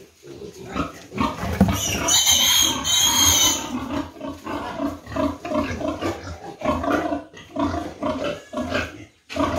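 Pigs grunting, with a piglet giving a loud, high squeal for about a second and a half, about two seconds in, as it is caught. After that comes a steady run of short grunts, about two or three a second.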